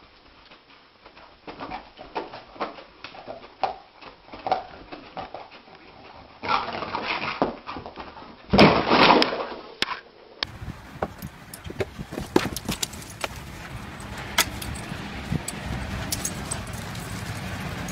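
Labrador retrievers moving about: scattered knocks and scuffling, with two louder noisy stretches around seven and nine seconds in, then clicks and light knocks over a steady background hiss.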